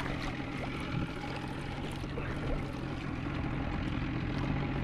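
Water lapping and trickling against the side of a fishing boat, with a low steady hum underneath and a few light knocks.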